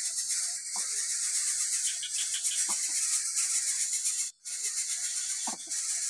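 Steady high-pitched insect buzzing with a rough, rattling texture, with a few faint short sounds in between. It cuts out for a moment about four seconds in.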